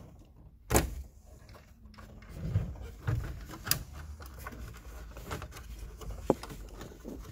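Scattered clicks and knocks of hard plastic as the Ford Festiva's gauge bezel is handled and its switch wiring plugs are worked loose, the sharpest knock about a second in.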